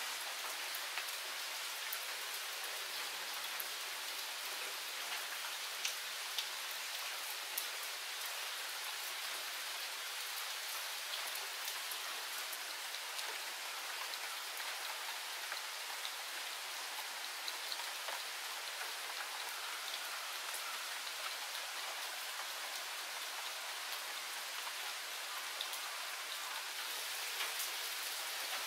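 Steady rain falling, an even hiss scattered with the ticks of single drops, a few of them louder.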